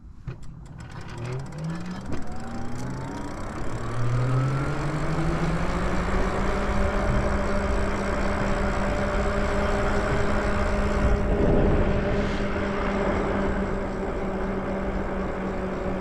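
Lyric Graffiti e-bike's electric motor whining, its pitch climbing as the bike picks up speed over the first few seconds, then holding one steady pitch at cruising speed over a steady rushing noise.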